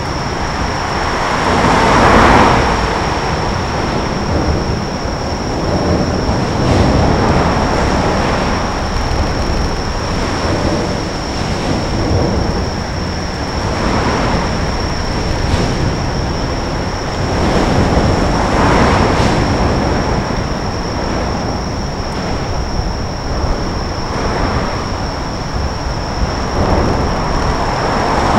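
Road traffic on a bridge: a steady rumble, with vehicles swelling past every few seconds, the loudest about two seconds in and at the very end, over a steady high whine.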